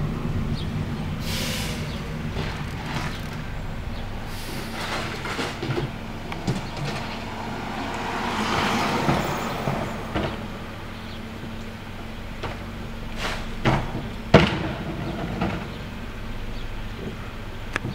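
Rear-loader garbage truck's diesel engine running steadily at idle, with a hiss swelling about halfway through and several sharp bangs near the end, the loudest two-thirds of the way in, as a wheeled trash cart is handled at the hopper.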